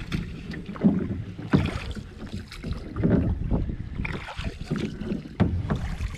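Canoe paddles dipping and pulling through the water in irregular strokes about once a second, with wind buffeting the microphone.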